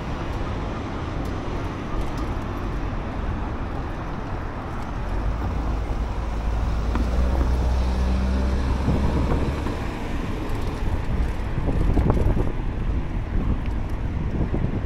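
Car traffic on the road alongside, mixed with wind rumbling on the microphone. A vehicle passes loudest about halfway through, and the rumble swells again near the end.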